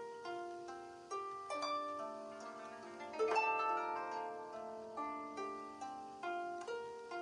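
Background music: a gentle plucked-string tune, its notes struck about twice a second and ringing out, with a louder note about three seconds in.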